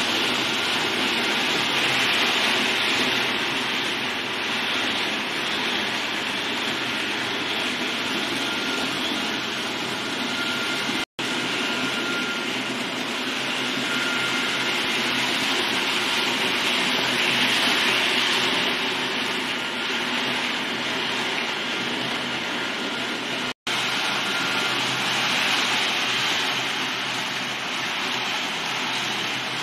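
H0 model train running: a Roco ÖBB 1216 Taurus locomotive with sound hauling eight four-axle tank wagons, giving a steady rolling noise with faint steady tones. The sound cuts out abruptly twice, once about a third of the way in and again near the end.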